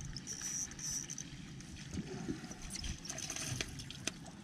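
Light water splashing and sloshing over a low, uneven rumble, with a couple of sharp clicks near the end.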